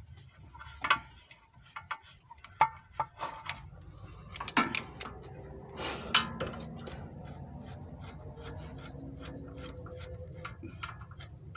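Steel jaws and arms of a three-jaw puller clinking and knocking as they are fitted around a steering tie rod end, with several sharp knocks in the first half and quieter, steadier metal rubbing after.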